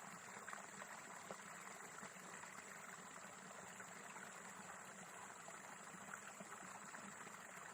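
Faint steady waterside ambience: a low hiss of trickling water with small scattered crackles.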